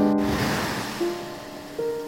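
Background music: a melody of separate plucked notes that start sharply and fade, with a brief noisy wash near the start.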